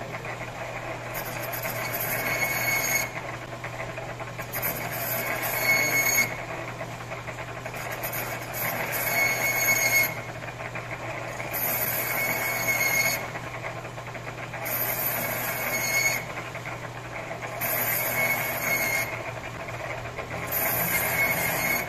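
Metal lathe turning a scooter clutch bell while a cutting tool grooves the inside of its steel drum: a steady motor hum under a high-pitched squeal of tool on metal that comes in bursts of a second or two, about every three seconds.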